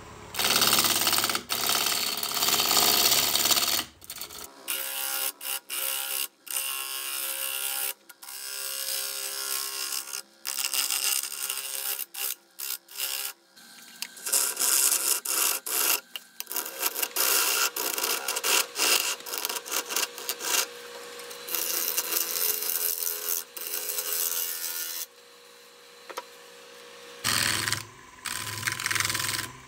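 Turning tool cutting into a wood-and-resin disc spinning on a lathe: a hissing, scraping cut that comes in bursts as the tool is pressed in and eased off.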